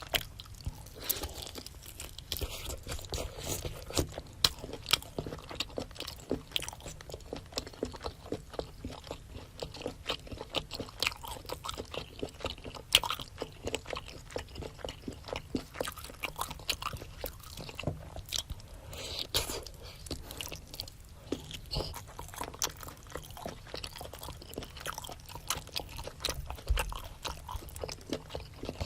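Close-miked chewing of seafood and rice cake: a steady run of wet, crunchy mouth clicks and bites.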